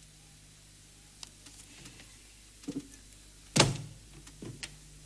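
Wooden chair being pulled out and sat on at a wooden table: a few light knocks, then one loud thump about three and a half seconds in and a smaller knock after it.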